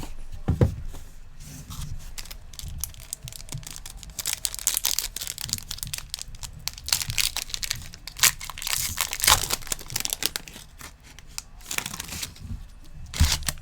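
A foil trading-card pack being torn open and its wrapper crinkled: irregular crackling tears and rustles, with a few dull knocks from handling.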